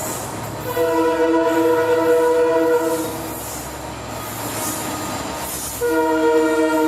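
Indian Railways locomotive horn sounding two steady blasts: the first lasts about two seconds, and the second starts near the end after a pause of about three seconds. A steady train running noise lies beneath.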